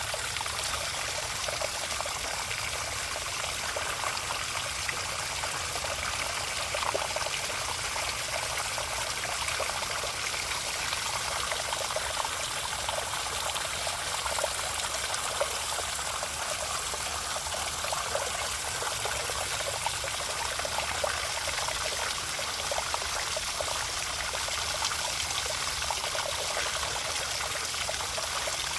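Water trickling and splashing steadily, a continuous fine patter of running water.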